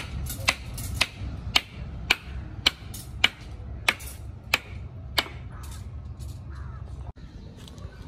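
Hammering: sharp knocks at a steady pace of about two a second, which stop about five seconds in, over a steady low rumble.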